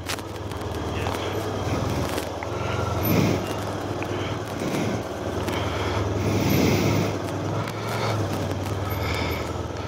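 Motorcycle engine running steadily at low revs as the bike creeps slowly across a car park.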